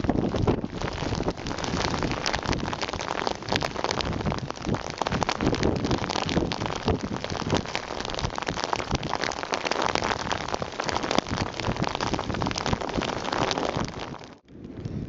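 Hail pelting down in gusty wind, a dense crackling patter of hailstones striking close to the microphone. It drops off abruptly near the end to a quieter hiss.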